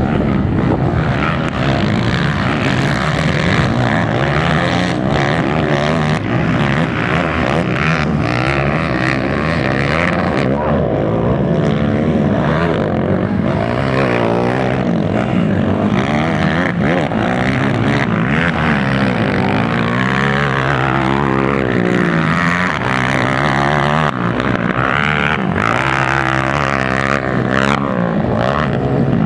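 Several racing ATV (quad) engines revving hard and easing off as they race, the pitch rising and falling over and over, with more than one engine heard at once.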